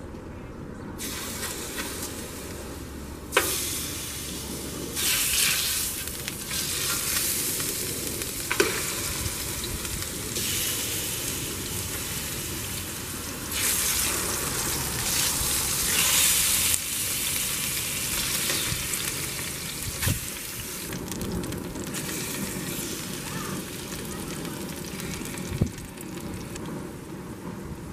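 Chicken pieces sizzling as they are laid into hot oil in a steel paella pan. The sizzle swells each time more pieces go in. A few sharp clicks come from metal utensils knocking the pan.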